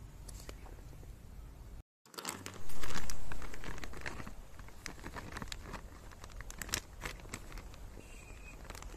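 Plastic zip-top bag crinkling and rustling as it is shaken out, emptying shimeji mushrooms, fried tofu and burdock into a mess tin of rice. A loud rustle about three seconds in fades away into scattered crinkles.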